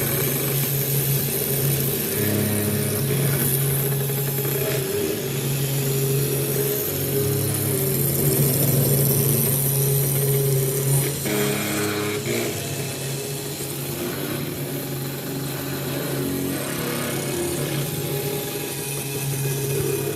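Desktop CNC router running: its motors hum at pitches that change in steps every second or two as the machine moves, over a steady high hiss.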